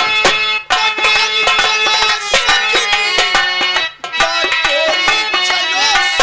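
Instrumental Indian folk music, with melodic instrument lines over a quick drum beat; it breaks off briefly twice.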